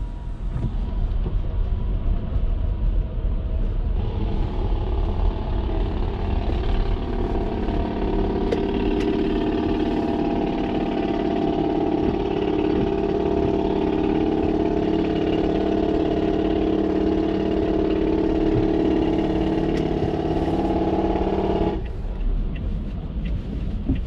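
Traffic and road noise while driving: a low rumble throughout, joined about four seconds in by a steady droning hum that cuts off suddenly near the end.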